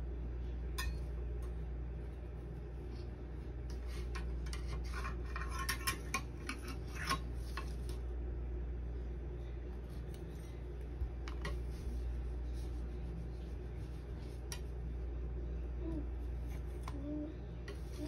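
Metal spatula scraping and clicking as soft baked cookies are lifted and set down on a plastic tray. There is a flurry of clicks about four to seven seconds in and scattered single ones, over a steady low hum.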